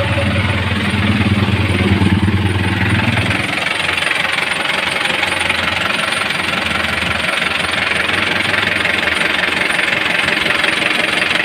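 Isuzu 4BE1 four-cylinder diesel engine running steadily with a fast, even diesel clatter. Its deep drone drops away about three and a half seconds in.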